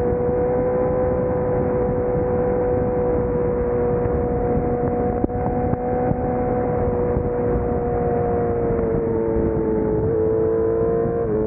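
Sport motorcycle engine running at a steady cruising speed under heavy wind rush. Its note dips slightly a couple of times near the end.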